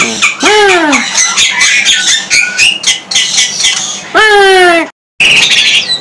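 Caged songbirds, the Bali myna among them, chirping and calling: rapid high chirps throughout, with two longer whistled notes that rise and fall, one about half a second in and one about four seconds in.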